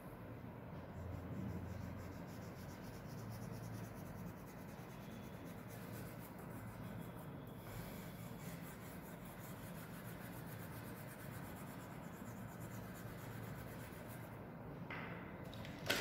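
Oil pastel scratching across paper in quick, repeated back-and-forth shading strokes, with a sharp knock near the end.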